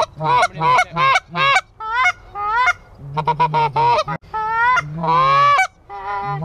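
Canada goose call blown close by, giving a quick run of short clucks that turns into fewer, longer rising honks after about three seconds.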